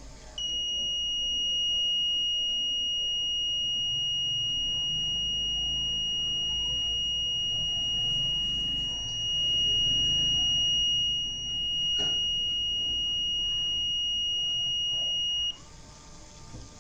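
Piezo buzzer on an Arduino heart-rate circuit sounding one continuous high-pitched tone, a low-heart-rate alarm while the pulse sensor reads 0 BPM, then cutting off suddenly near the end. A single click about twelve seconds in.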